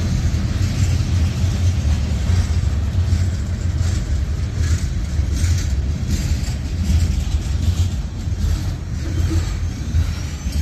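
Covered hopper cars of a mixed freight train rolling past close by: a steady low rumble of steel wheels on rail, with a few short bursts of clatter midway.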